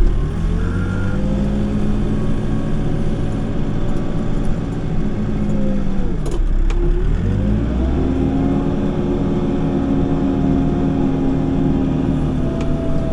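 Backhoe's diesel engine revving up under work and holding high revs, dropping back briefly at about six seconds, then revving up again and holding before easing off at the end.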